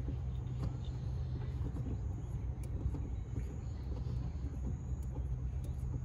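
A factory-fitted car gear knob being unscrewed by hand from the gear lever, many turns, with faint clicks and scrapes from its thread. A steady low rumble runs under it throughout.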